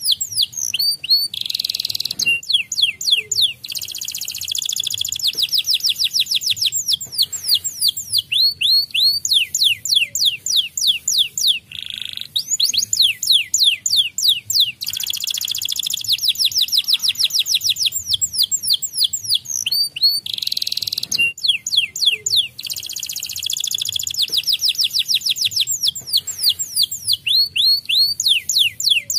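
White canary singing a long, fast song of rapid high trills and rolls. The phrases run almost without a break, with short pauses every several seconds.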